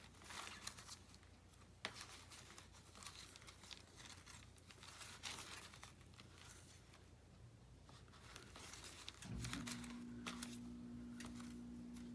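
Faint rustling and crinkling of paper as hands leaf through a thick stack of paper scraps. About nine seconds in, a steady low hum starts up suddenly and keeps going under the rustling.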